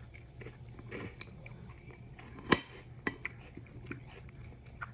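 Close-up eating sounds: a person chewing and biting into cookies and cereal, with small crunching crackles. A sharp click about halfway through, the loudest sound, and a few smaller clicks after it.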